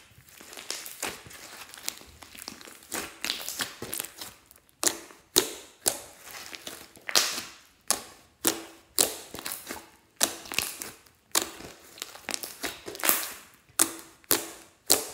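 Thick metallic slime being pressed and squished by hand, with sharp popping and crackling as trapped air pockets burst, a pop about every half second to second.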